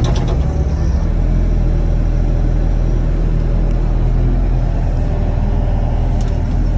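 Mini excavator engine running steadily with a low rumble. A fast, even rattle dies away in the first half-second.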